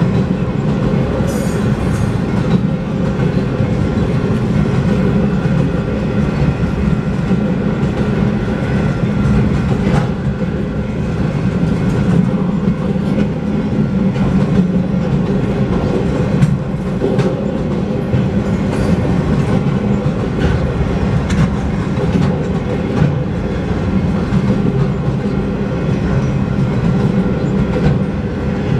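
Empty windmill-component freight cars of a long train rolling steadily past, a continuous rumble of wheels on rail.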